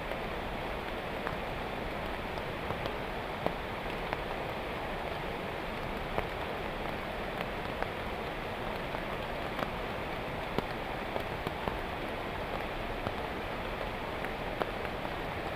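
Heavy rain falling steadily, with scattered louder drops ticking sharply on nearby surfaces.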